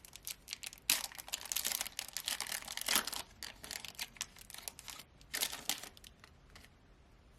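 Trading card pack wrapper being handled and torn open: crinkling and crackling in uneven clusters, loudest about a second in, around three seconds in and about five and a half seconds in, dying away near the end.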